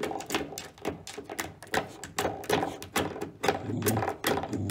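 Coiled-spring doorstop being flicked over and over by a puppy, twanging with a sharp snap and short ring about three times a second.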